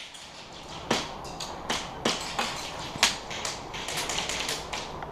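Airsoft rifles firing scattered single shots, sharp cracks at irregular intervals, the loudest about three seconds in.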